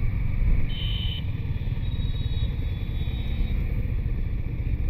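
Motorcycle engine running on the move, a steady low rumble, with a couple of faint brief high tones about a second in and again around two to three seconds.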